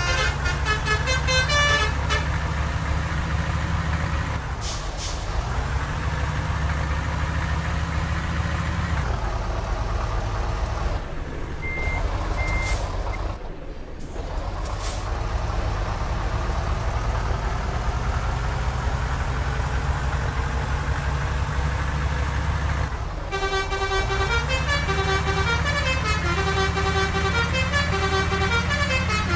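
Indonesian bus 'telolet' horn playing a stepped multi-note melody over the bus's heavy engine rumble. The horn tune sounds briefly at the start and again for the last several seconds, with the engine running steadily in between and a few short hisses.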